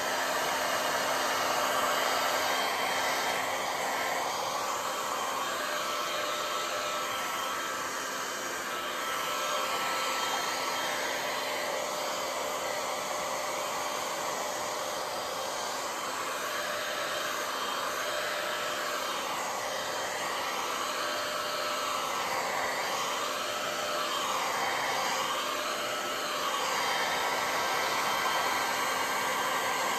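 Handheld electric heat gun blowing steadily on its low fan setting at about 500 degrees, held over fresh epoxy resin to pop surface bubbles. The even rush of air shifts repeatedly in tone in the second half as the nozzle is swept back and forth over the surface.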